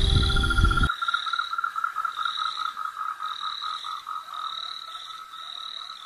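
Music cuts off about a second in, leaving a chorus of frogs and insects: a steady pulsing call about four times a second, with a higher trill coming and going above it, slowly fading.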